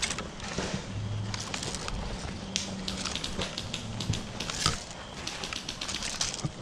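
Irregular crunching and crackling, like footsteps pushing through dry leaves and brush.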